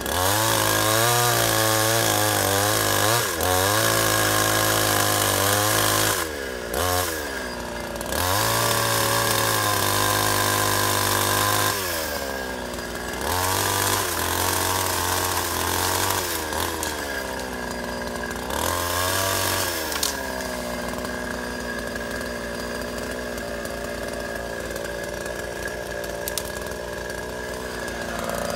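Two-stroke chainsaw cutting into a felled oak trunk at full throttle. Its pitch sags each time the chain bites into the wood and climbs again when it is eased off, several times over. For the last third it runs lower and steadier.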